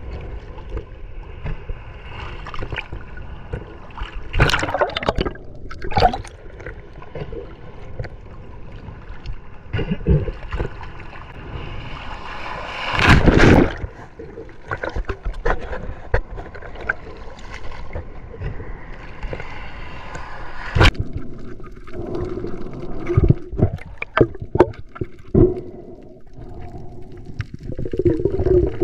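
Seawater sloshing and splashing around a swimming spearfisher at the surface, with louder splashes about four seconds in, near the middle and about two-thirds of the way through. Near the end the sound turns duller as he goes under.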